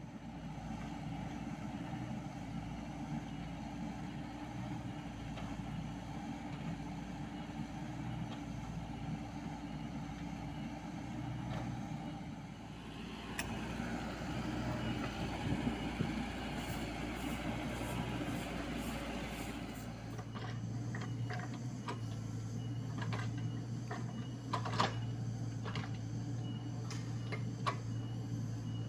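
Komatsu mini excavator's diesel engine running steadily. A rushing noise joins about halfway through. In the last third, sharp knocks and scrapes come as the bucket digs into the earth bank.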